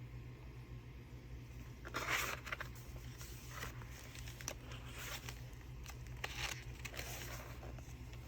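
Paper pages of a handmade junk journal being turned and handled: several short rustles and crinkles, the loudest about two seconds in, with a few light taps between them.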